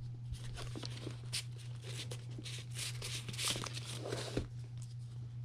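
Paper band slid off a small cardboard iPod box and handled: irregular soft rustling and scraping of paper and card, busiest about three to four seconds in.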